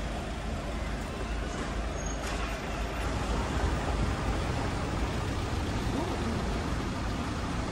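Street traffic noise: motor vehicles, a lorry and cars, running close by on a narrow town street, as a steady noise without distinct events.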